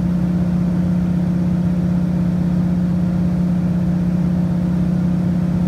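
Floatplane engine and propeller in level cruise, heard from inside the cabin: a steady drone at one unchanging pitch over a low rumble.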